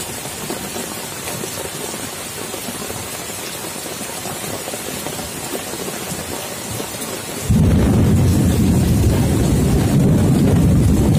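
Steady heavy rain falling on leaves, grass and puddles. About seven and a half seconds in, a loud, low rumble of thunder starts suddenly and keeps rolling.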